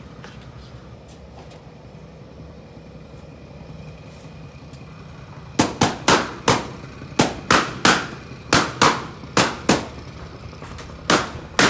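Balloons popping one after another: about a dozen sharp, loud bangs starting about halfway in, two or three a second, with a short pause before the last ones. Before them, only a low steady background noise with faint clicks.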